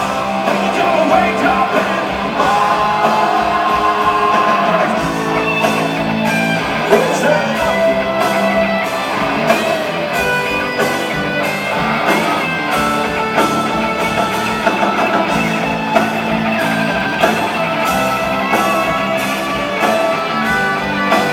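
Rock band playing live: electric guitars over a steady drum beat.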